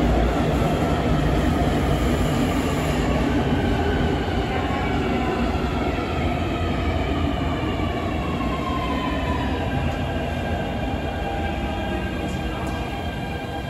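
Beijing Subway Line 6 train slowing into the station: a steady rumble of the cars rolling past, with several motor whines that fall in pitch as it brakes. The whole sound grows gradually quieter.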